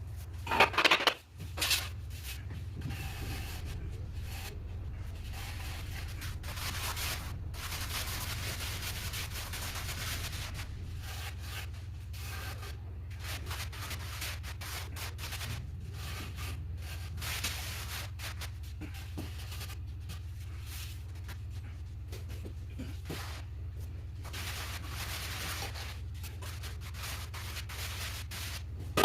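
Hand trowel scraping and smoothing cement mortar on a floor in repeated irregular strokes, over a steady low hum. A few louder knocks come about a second in.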